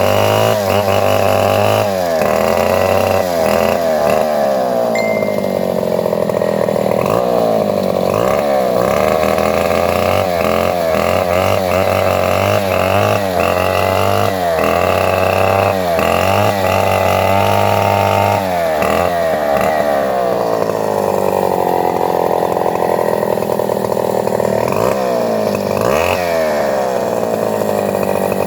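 Chainsaw running hard while cutting a coconut palm trunk, its engine pitch dipping under load and rising again many times, with no pause.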